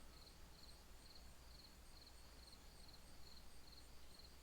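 Faint cricket chirping: a short high trill repeating about twice a second, over a low steady hum.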